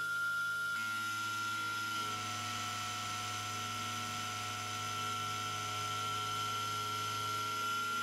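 Sieg SX2.7-based CNC mill roughing hardened steel with a 4 mm roughing end mill: a steady high whine over a low hum, its tones shifting slightly about one and two seconds in.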